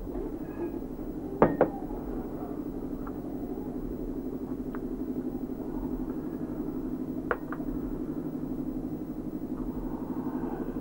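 A steady low mechanical drone with a fast flutter, broken by a few sharp knocks: a double knock about a second and a half in, lighter single ones after, and another double knock about seven seconds in.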